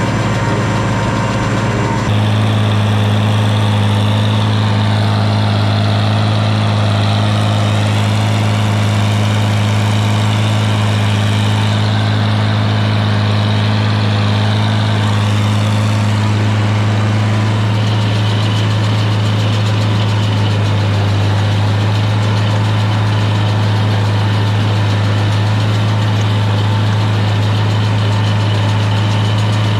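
Farmall 706 tractor engine running steadily while pulling a hay baler, stepping up slightly in loudness about two seconds in.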